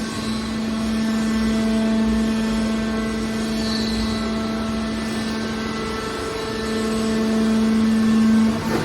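Hydraulic scrap metal baler running, its pump and motor giving a steady pitched hum over machine noise. The hum grows louder in the last couple of seconds and drops away just before the end.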